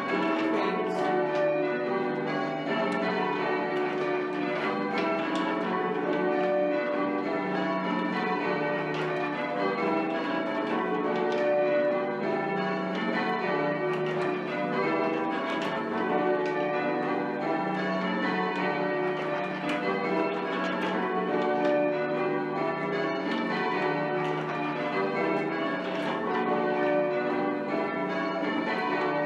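Change ringing on a ring of eight church bells with a 24 cwt tenor, the bells striking one after another in continuous rotation. Some bells, the seventh in particular, are slightly oddstruck, which the ringer puts down to a tall, wobbly tower.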